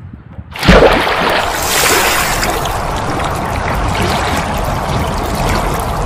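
Rushing, splashing water sound effect. It comes in suddenly about a second in and then runs on as a steady, loud rush.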